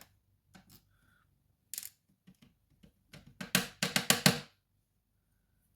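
Small metal lock pins and tools clicking and tapping as pins are removed from a Mul-T-Lock lock core: a few single clicks, then a quick flurry of clicks about three seconds in.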